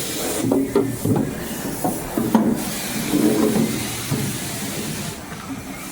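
Self-serve car wash pressure wand spraying a hissing jet of water, which cuts out briefly a few times, with knocks and scraping mixed in.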